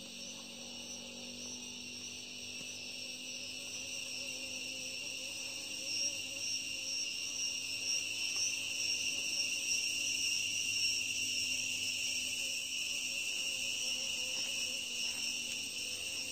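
Insects chirring steadily in a continuous high-pitched drone, growing louder over the first half.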